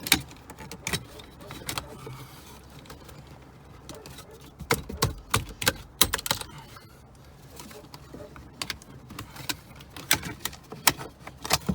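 Plastic steering column trim covers clicking and knocking as they are shoved and wiggled into place around the stalks: an irregular run of sharp clicks, busiest about five seconds in and again near the end. A piece is catching on something and won't seat.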